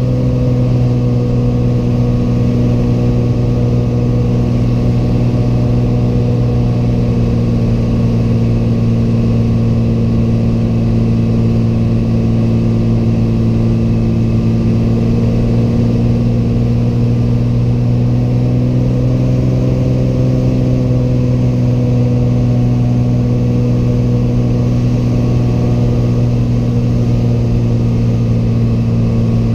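A single-engine Piper's piston engine and propeller droning steadily, heard inside the cockpit, with slight shifts in pitch partway through.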